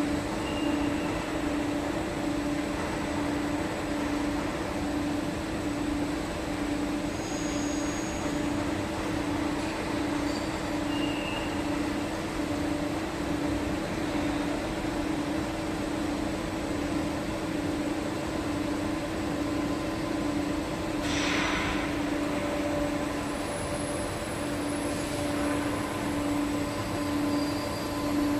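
Hydraulic pump unit running steadily, a strong low hum that wavers evenly, pressurising a hydraulic cylinder through its hose. A short hiss comes about three-quarters of the way through.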